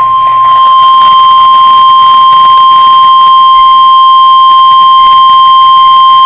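Emergency Alert System attention tone announcing a severe thunderstorm warning: one loud, steady, unbroken alarm tone at a single pitch.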